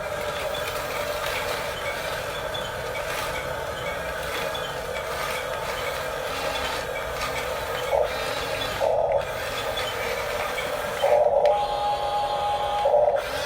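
Huina 1569 RC bulldozer's small electric motors and geared drive whirring as it runs on its tracks, with louder bursts of whine a few times near the end.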